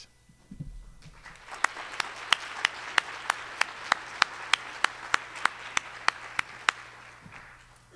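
Audience applauding, with one pair of hands clapping close to the microphone about three times a second. The applause swells about a second in and dies away near the end.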